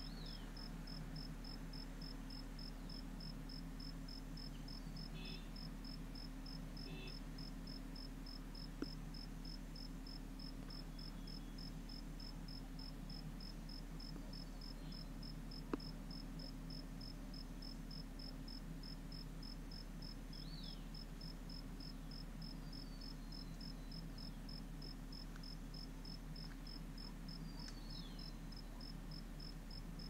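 Cicadas calling: a high-pitched, evenly pulsed call that goes on without a break. A few faint falling whistles are heard over it, along with a low steady hum.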